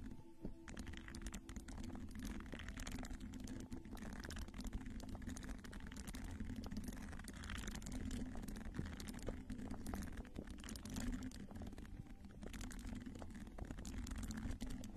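Soft ASMR tool, a fluffy brush or puff, brushed and rubbed against the microphone close up. It makes a dense, irregular scratchy crackling over a steady low rumble.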